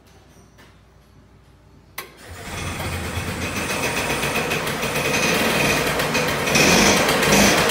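Piaggio Ape MP550's single-cylinder two-stroke engine starting: a sharp click about two seconds in, then the engine catches and runs steadily, getting louder toward the end.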